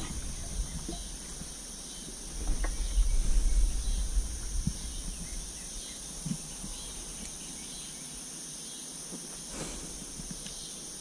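Steady high insect chorus in summer woodland, with a low rumble on the microphone between about two and five seconds in and a few faint ticks.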